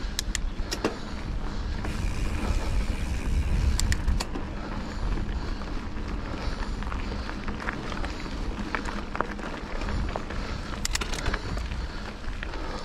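Wind rushing and buffeting the microphone during a fast downhill run, with a steady scraping noise and scattered sharp clicks and knocks.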